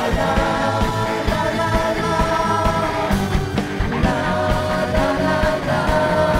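Pop music: a singer holding long notes over a band, with a steady drum beat.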